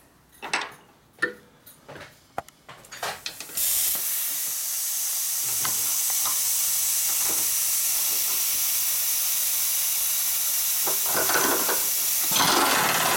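A few sharp metal clicks and knocks of tooling and clamps on a milling machine table, then a loud, steady hiss that starts abruptly about three and a half seconds in and carries on.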